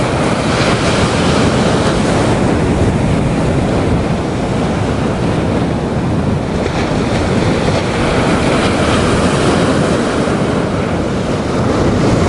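Ocean surf washing on a beach, with wind buffeting the microphone in a steady, loud rush.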